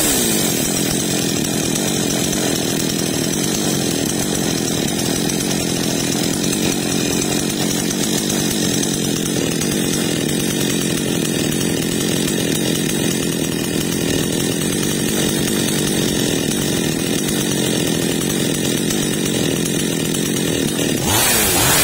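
Zomax two-stroke chainsaw engine running steadily with its top cover off during carburetor work. It picks up slightly near the end.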